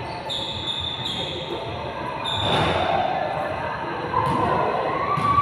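A basketball bouncing on a gym floor, a few sharp echoing thuds, with short high squeaks of sneakers on the court and players' voices echoing in the hall.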